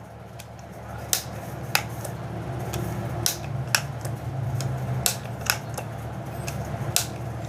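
Irregular sharp clicks and taps of small metal parts as a Diana 34 air rifle's T06 trigger group is fitted back into place, over a steady low hum.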